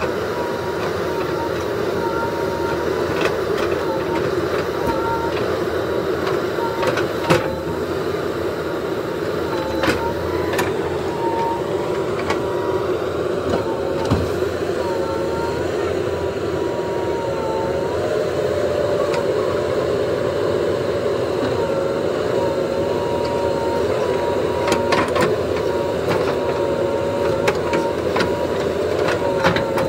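JCB 3DX Super backhoe loader's diesel engine running steadily under load while the backhoe arm works, with a pitched whine that wavers and rises a little past halfway. A few sharp knocks come through as the bucket works among the logs.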